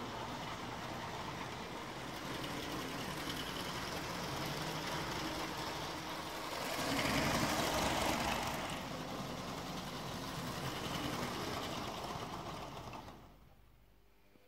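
Motorised building-brick model train running on plastic track: a steady whir of its small electric motor and gearing with the rattle of wheels on the rails. It swells for a couple of seconds midway, then drops away sharply near the end.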